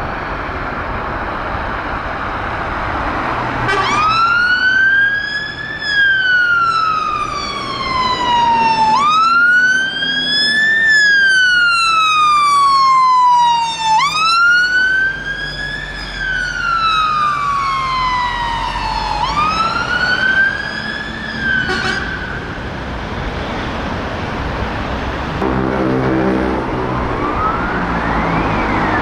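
Fire engine siren wailing in slow rising-and-falling sweeps of about five seconds each, over the truck's engine. Near the end another siren starts up.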